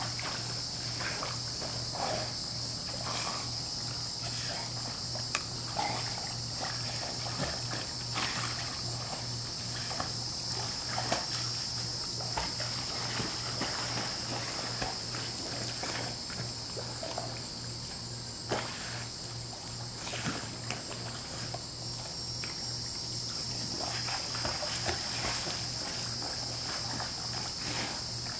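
A steady, high-pitched insect chorus at two pitches, with a low hum beneath. Scattered faint rustles and clicks come from two young dogs play-wrestling on grass.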